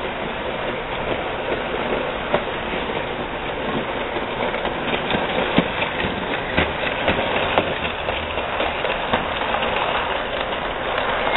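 HO-scale model train, a Bachmann 4-8-4 steam locomotive with its cars, rolling past on sectional track: a steady whir with irregular sharp clicks as the wheels cross the rail joints, getting a little louder as it comes close.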